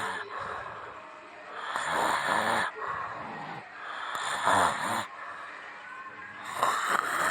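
A person snoring loudly, three rasping snores about two seconds apart.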